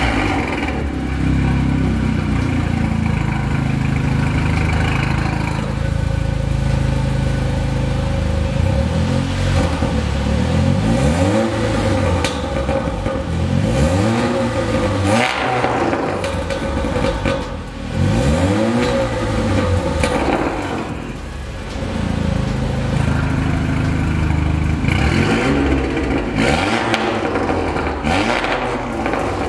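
Volkswagen Golf 7 R's turbocharged 2.0-litre four-cylinder breathing through an aftermarket Armytrix downpipe and valved cat-back exhaust, with the car standing still. It idles steadily at first, then is revved in several short blips, each rising and falling within a second or two, spread through the middle and again near the end.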